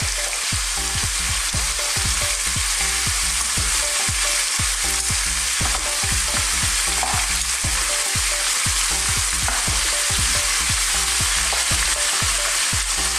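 Pork ribs sizzling in hot oil in a pan, a steady hiss with frequent small crackles and pops, as the ribs are turned over with metal tongs to brown the other side.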